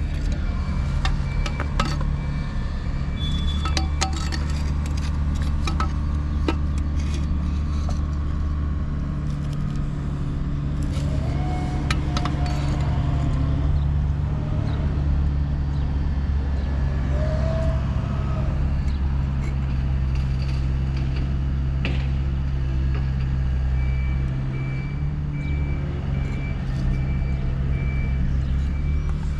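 A steady low engine hum with scattered clicks and clinks over it.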